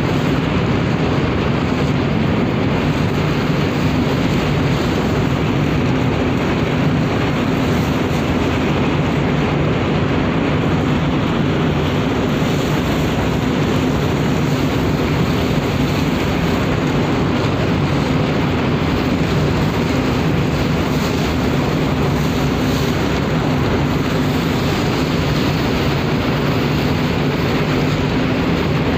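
Steady, unchanging drone of a cargo ship's engines and machinery with a constant rushing noise over it, with a low hum running throughout.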